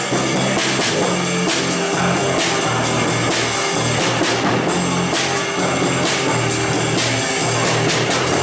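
Live rock band playing: electric guitar and a drum kit, with the bass drum and cymbals struck on a steady beat, about two cymbal hits a second.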